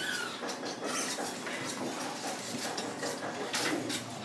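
Scattered light clinks and knocks as a gypsum board and tools are handled up against a metal ceiling frame.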